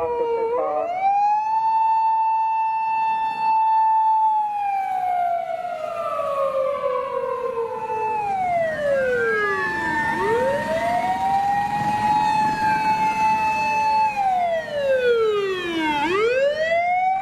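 Emergency vehicle siren wailing slowly. Each cycle rises quickly, holds one high tone for about three or four seconds, then slides down over several seconds before climbing again. A second siren overlaps it near the middle, along with some low vehicle noise.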